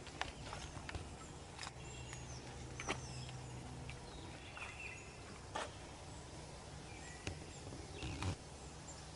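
Outdoor woodland ambience: scattered short bird chirps over a faint steady background, with a few sharp clicks, the loudest about three seconds in.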